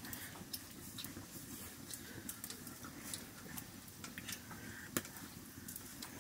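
Light, scattered clicks and clinks of steel bowls and a steel plate being handled and scraped as rice is eaten by hand, with one sharper knock about five seconds in.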